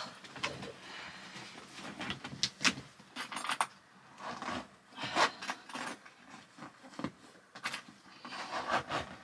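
Hands pressing and working at the lid of an overfull hard-shell suitcase to force it shut: scattered knocks, clicks and rubbing against the ridged shell, with rustling of the packed clothes.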